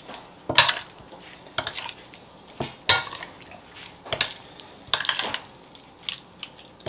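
Metal spoon stirring cubed raw tuna through a thick mayonnaise-based sauce in a bowl: wet strokes with the spoon scraping and knocking against the bowl, about one stroke a second.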